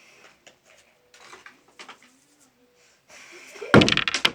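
Soft rustling in a small room, then near the end a sudden loud clatter of several quick knocks close together.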